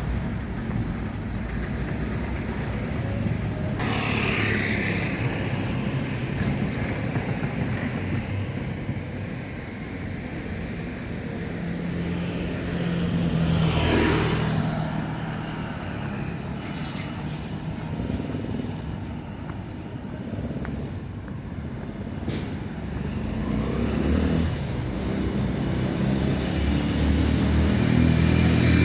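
Motor vehicle engine and road noise running steadily, with a brief louder pass about halfway through; the low engine hum grows louder near the end.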